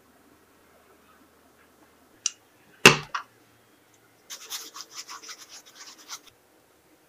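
A sharp knock, then about two seconds of rapid gritty rubbing: hands scrubbing the fuzz off a peach's skin with salt and water over a glass bowl.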